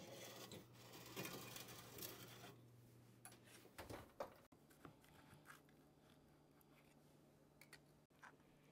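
Near silence: a faint rustling scrape for the first couple of seconds, then a few faint clicks over a low hum.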